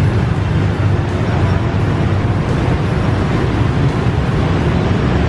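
Steady street traffic noise, a continuous low rumble with no single vehicle standing out.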